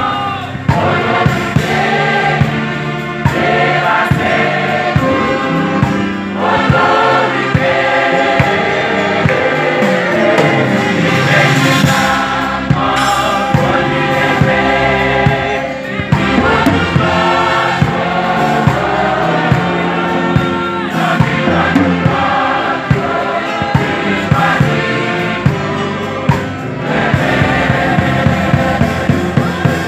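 A choir singing a gospel worship song over a band with a steady drum beat.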